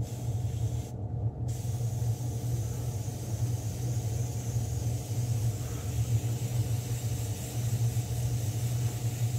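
Airbrush spraying paint in a steady hiss, with a short break about a second in, over a steady low hum.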